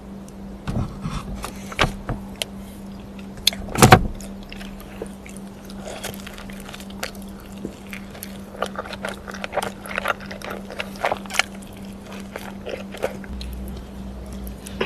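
Close-miked eating sounds: a run of short crunches, clicks and smacks from biting and chewing, the loudest crunch about four seconds in, over a steady low hum.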